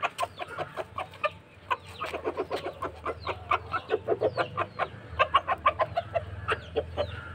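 A small flock of backyard chickens clucking busily, many short clucks several a second, as they peck at freshly tossed chopped greens.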